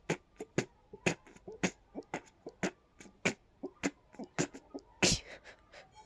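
A person's rapid fit of stifled, closed-mouth sneezes: short sharp bursts about twice a second, with a bigger, longer one about five seconds in. The sneezer puts it down to dust and pollen sensitivity.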